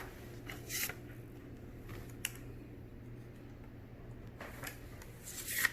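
Faint handling noises from a vinyl vertical blind slat: a short rustle about a second in, a light click a little after two seconds, and a brighter swish near the end, over a low steady hum.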